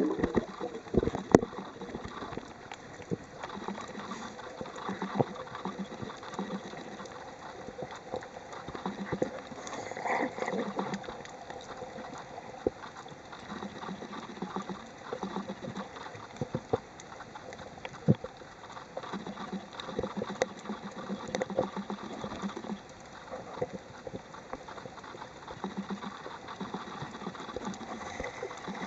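Underwater sound picked up by a camera on a coral reef: a steady wash of water with scattered clicks and crackles and soft bubbling and gurgling.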